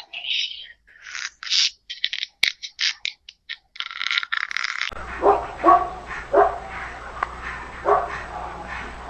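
A dog barking with four short, sharp barks, starting about halfway through, after a run of short crisp crackling or crunching noises in the first half.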